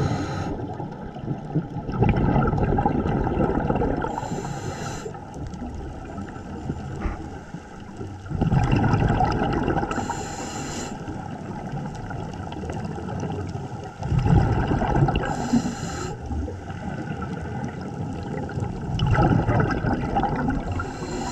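Scuba diver's regulator breathing, heard underwater: a gurgling rush of exhaled bubbles followed by a short hiss as the diver inhales, repeating about every five to six seconds, four times.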